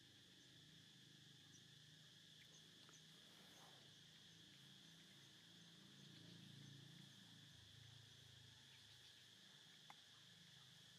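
Faint steady chirring of insects, with a single faint click near the end.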